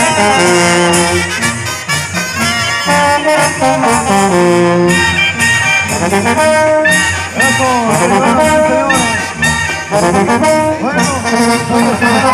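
A live brass band plays loudly, with held and moving brass notes over lower bass lines.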